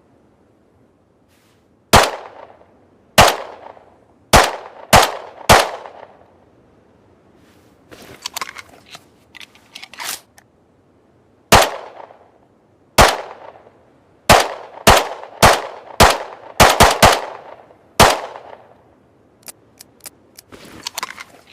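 Makeshift semi-automatic pistol firing about fifteen sharp shots, each with a short ringing tail. Five come in the first few seconds, and after a pause ten more follow, several in quick succession. Runs of quieter metallic clicks fall between the two groups and after the last shot.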